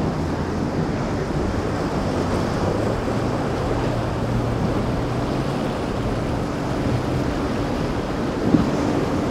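Axopar 37 motorboat running at speed through rough inlet water: a steady low engine hum under the rush of water and spray, with wind noise on the microphone. A brief thump sounds near the end.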